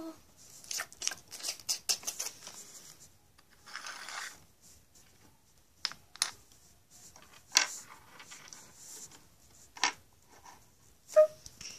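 Small plastic Littlest Pet Shop toy pieces clicking and tapping against a hard floor as they are handled, a quick flurry of clicks at first, a brief rustle about four seconds in, then single knocks, the sharpest near the end.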